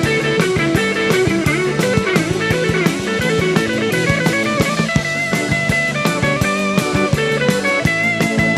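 Instrumental blues-rock music: electric guitar playing a line of stepping notes over a drum kit, with no singing.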